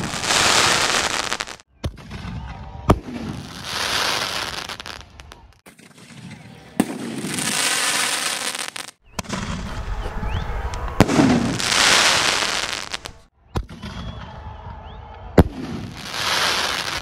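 Asok 'Sizzling Frizzling' sky shot shells fired one after another: each a sharp launch report, then a loud dense crackling sizzle as the shell bursts. The sound breaks off abruptly every three to four seconds between shells.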